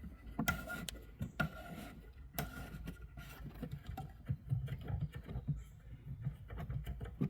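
Hand unscrewing the spring-loaded plastic retaining screw of a car's rear tail lamp: scattered small plastic clicks and rubbing.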